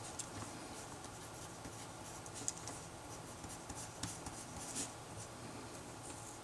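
Faint handwriting: short, scratchy strokes of a pen or pencil as math is worked out by hand, with a few small ticks.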